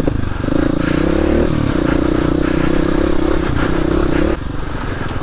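Kawasaki KLX250S's single-cylinder four-stroke engine pulling under throttle: its pitch rises over the first second or so, holds steady, then falls away as the throttle closes about four seconds in, with clatter of the bike over rough ground. The fuel-screw mixture has just been leaned out a bit, and the engine is running a tiny bit better for it.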